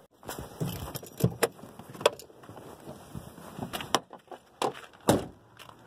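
Handling noise on a covered phone: rustling with a string of irregular knocks and clicks, the loudest about five seconds in.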